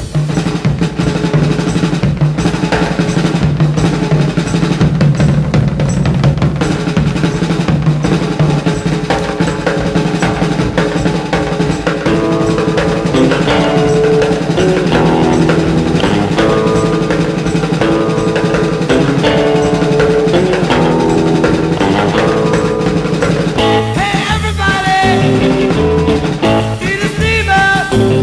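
Background music: a rock track with a drum kit playing.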